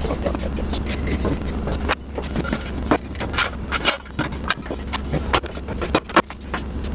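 Irregular clinks and knocks of metal hardware being handled as the fence is fitted onto a Cutech 8-inch benchtop jointer, with small parts and hex keys set down on a wooden bench, over a steady low hum.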